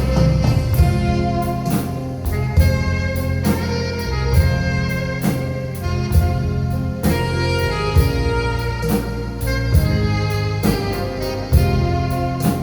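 Live instrumental band music: an alto saxophone carrying the melody in long held notes over keyboard and a drum kit keeping a steady beat.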